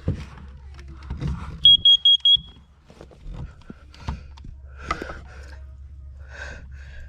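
First Alert CO606 plug-in carbon monoxide alarm sounding its test signal: four quick, high-pitched beeps of one pitch a little under two seconds in, the four-beep pattern that means carbon monoxide. Its piezo sounder is covered over. Scattered clicks and knocks of handling come before and after the beeps.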